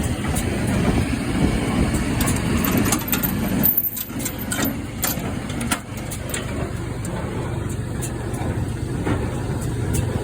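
Tractor engine running steadily, with scattered short mechanical clicks and knocks over it; the noise dips briefly about four seconds in.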